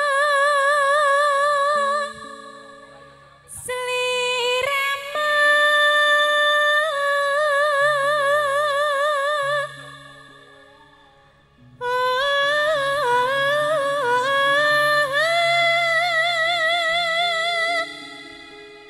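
A woman singing long held notes with wide vibrato and sliding ornamental turns, in the style of a Javanese sinden, over soft keyboard and bass accompaniment. She sings three phrases, pausing about 2 s and 10 s in.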